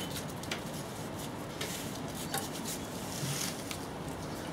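Faint rubbing and a few light clicks as a rubber timing belt is worked by hand around the pulleys of a VW AHU TDI diesel engine.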